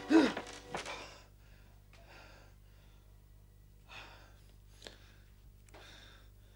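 A man gasps sharply, as if jolted awake, then breathes heavily in several separate breaths.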